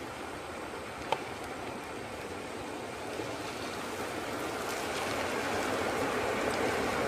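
A muddy flash-flood torrent rushing over a dry riverbed, a steady watery rush that grows louder over the last few seconds as the flow comes on. A single sharp click sounds about a second in.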